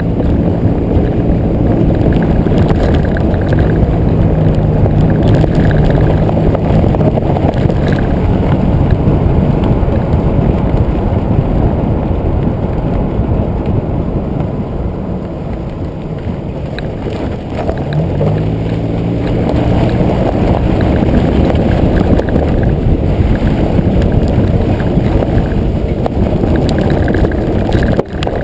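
2005 Nissan Xterra's 4.0-litre V6 engine pulling the truck slowly along a dirt track, revving up near the start and again about two-thirds of the way through, under heavy rushing noise from wheels, track and wind on the bumper-mounted microphone, with a few knocks.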